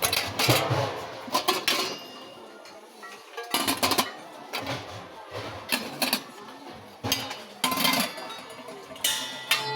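Metal kitchenware clinking and clattering as it is handled, in a series of sharp ringing knocks about every second or two.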